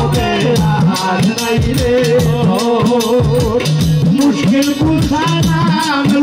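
Live Bengali devotional folk music: a two-headed dhol drum beaten in a steady rhythm, its low strokes bending in pitch, with a fast shaken rattle or jingle and a held melody line above.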